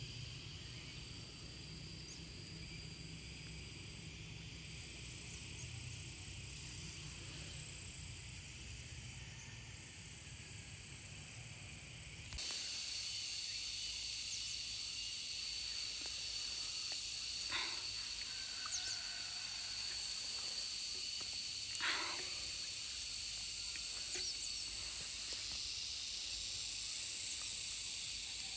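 Outdoor ambience dominated by a steady, high-pitched insect drone. It changes abruptly about twelve seconds in to a louder, brighter insect drone, with a few faint knocks later on.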